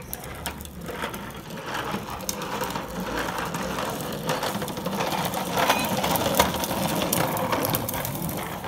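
Hard plastic wheels of a child's ride-on toy rolling and rattling over rough concrete. It is a continuous clattering rumble with many small clicks, growing louder as the toy nears.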